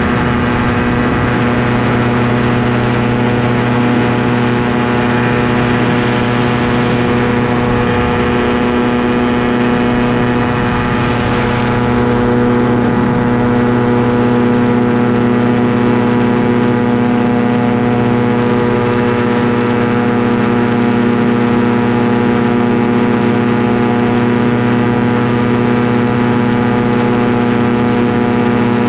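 Ultralight aircraft's engine and propeller running steadily in cruising flight, heard from the open cockpit. The tone shifts slightly about twelve seconds in.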